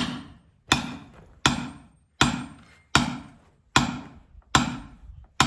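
Splitting maul striking a steel wedge set in a large firewood round: eight sharp blows in a steady rhythm, about one every three-quarters of a second, each ringing briefly. The wedge is being driven into a check in a tough round that has not yet split.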